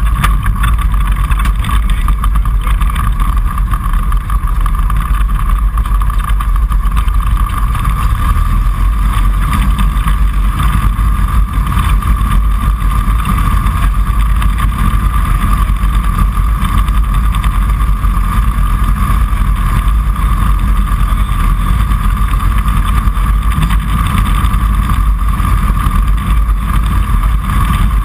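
Kitfox Series 5 light aircraft's engine and propeller running at a steady, unchanging drone, heard from inside the cockpit.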